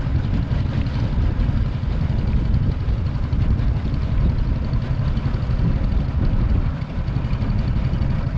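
Boat engine running steadily under way, a low rumble.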